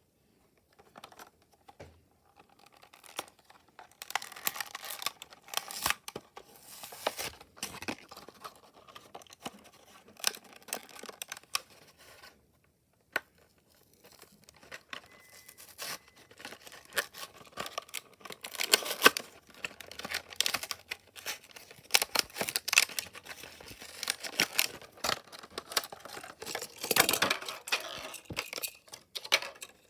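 A toy car's packaging being torn open and crinkled by hand, in irregular tearing and rustling bursts with a short quiet pause midway.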